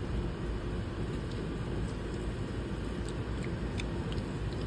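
Steady low outdoor background rumble with a faint steady hum and a few faint clicks.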